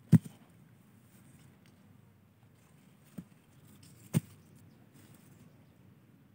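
Three sharp knocks over a quiet background: a loud one right at the start, a faint one about three seconds later, and a strong one a second after that.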